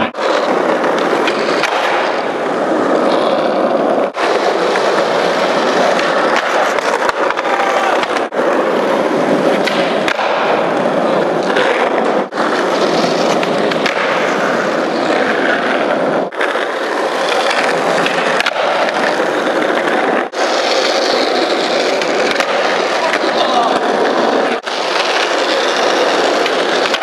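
Skateboard wheels rolling on smooth concrete, a continuous loud rolling noise broken by brief dips every few seconds.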